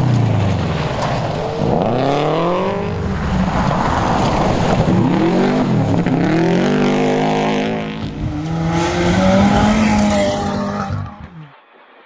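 Rally car engine at full throttle, its pitch climbing and dropping several times as the driver shifts gears and lifts off, then cutting off abruptly near the end.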